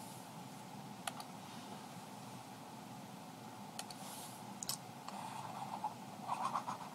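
A few faint, sharp computer mouse clicks over a low steady electrical hum, with a soft scratchy rubbing near the end.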